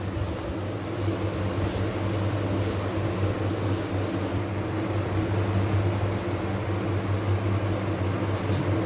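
A steady low mechanical hum, with faint soft scrapes of a silicone spatula stirring biscuit powder and milk into a batter in a plastic bowl.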